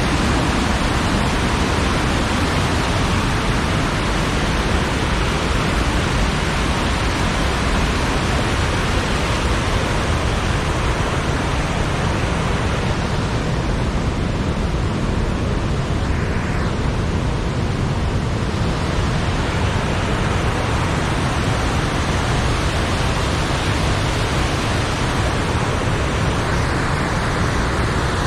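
Mountain valley stream running high after rain, its water rushing in one steady, unbroken wash of noise.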